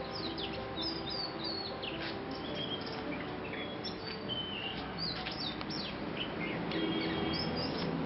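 Songbirds singing many quick, varied whistled notes and chirps, overlapping one another, over a soft background of sustained music notes.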